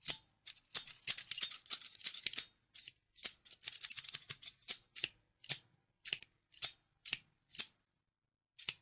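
Scissors snipping: a quick flurry of crisp snips, then single snips about every half second.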